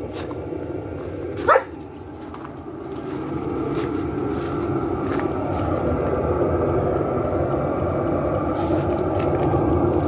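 Chinese diesel heater running, heard outdoors as a steady combustion and exhaust rumble that grows louder. A single short dog bark cuts through about a second and a half in.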